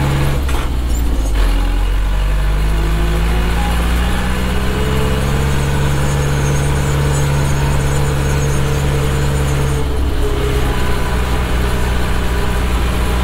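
Zetor 7211's 3.6-litre four-cylinder diesel tractor engine working hard while accelerating uphill, heard from inside the cab. The engine note falls about half a second in and again near ten seconds as gears are changed, then climbs again.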